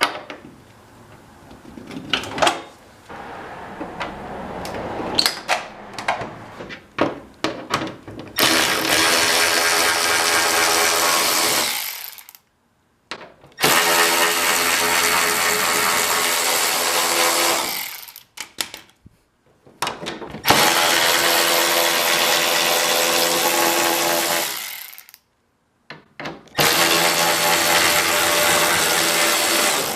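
A power drill or driver running in four long runs of about four seconds each, with short pauses between, after some clicks and knocks of handling parts; this fits fasteners being driven out while the car's front bumper comes off.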